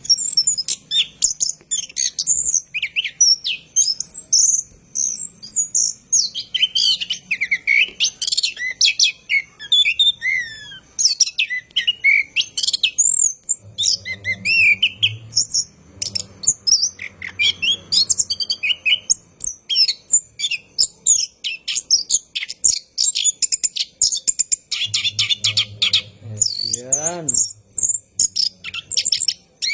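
Orange-headed thrush (anis kembang) singing a long, unbroken song of rapid, varied high chirps, trills and whistles.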